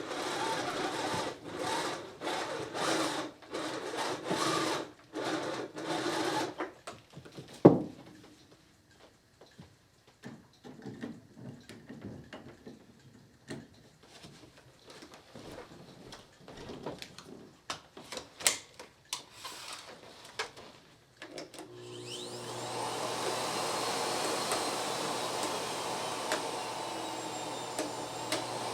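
Clatter and knocks of a Miele S5 Callisto canister vacuum being handled and set up, with one sharp loud click just before eight seconds in. About three quarters of the way through, its motor switches on, spins up and settles into a steady run.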